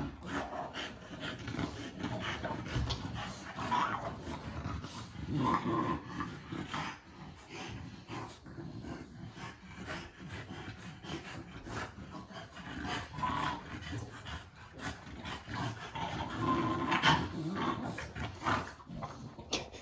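French bulldog making short, repeated vocal noises, a bout every second or two.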